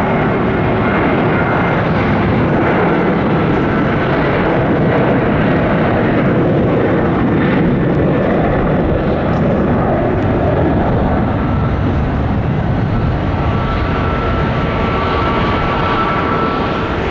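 Boeing 737-800's twin CFM56-7B jet engines at take-off thrust: a loud, steady rumbling jet noise, with a faint high whine entering in the latter part.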